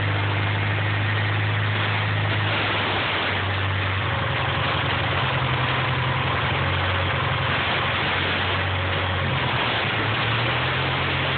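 Turbocharged DSM four-cylinder engine idling while carb cleaner is sprayed at a vacuum leak at a poorly sealed intake manifold, under a steady hiss. The idle note shifts several times.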